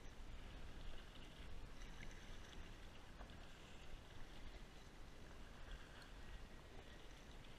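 Faint kayak paddling: the paddle dipping and choppy water lapping against the fishing kayak's hull, over a low rumble of wind on the microphone.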